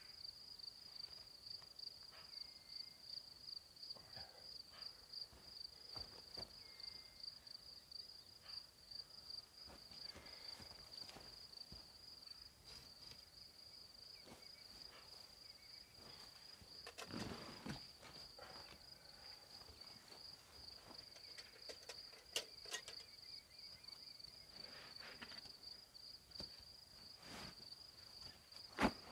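Crickets chirping in a steady high, pulsing trill. Scattered soft rustles and knocks sit over it, with a sharp knock near the end the loudest.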